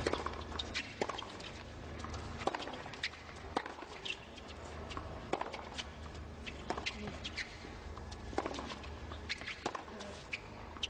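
Tennis rally on a hard court: sharp pops of rackets striking the ball and the ball bouncing, coming every half second or so, over the low hum of the stadium crowd.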